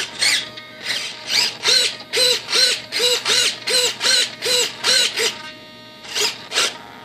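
RC aileron servo whining in short repeated bursts as it drives the aileron back and forth, about three strokes a second, each whine rising and then falling in pitch. The servo is being worked to check it and its linkage for excessive play.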